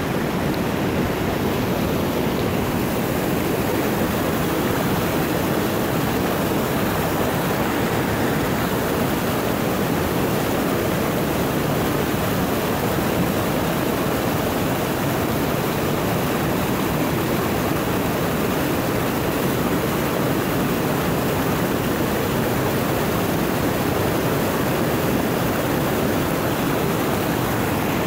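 River rapids rushing, a steady, unbroken whitewater roar.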